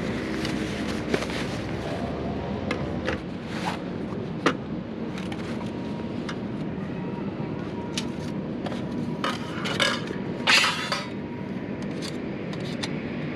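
Metal camp cookware clinking and scraping as a lidded pot set is taken out of its bag and thin folding metal plates are fitted beside it. There are scattered light clinks, with a louder clatter about ten seconds in.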